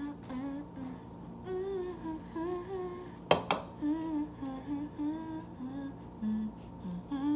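A woman humming a tune in short phrases of held notes, with two sharp knocks about three seconds in.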